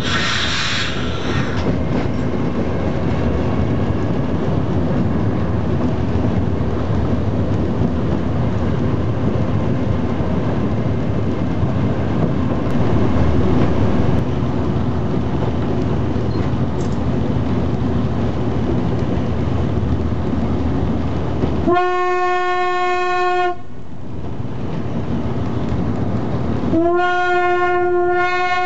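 Talbot railcar T44 running, heard from inside its driver's cab: steady engine and running noise with wheel clatter on the narrow-gauge track. The railcar's single-tone horn sounds twice: a blast of under two seconds about 22 s in, and a longer one from about 27 s in.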